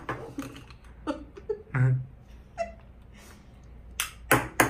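A small ball bounced on a pair of tiny plastic toy hands: scattered light taps, ending in three quick taps in a row. A brief vocal sound falls about two seconds in.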